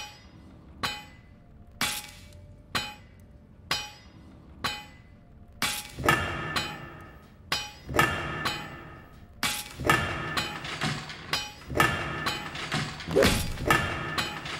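Background music with a slow, steady metallic percussive beat, about one strike a second; fuller pitched instrumentation joins about six seconds in.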